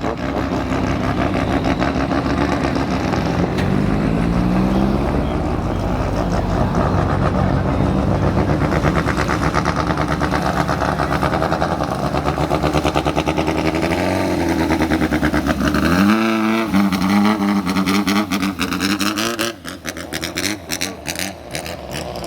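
Racing speedboat engine running hard at high revs, its pitch rising and falling as the throttle changes. The sound turns choppy and drops somewhat near the end.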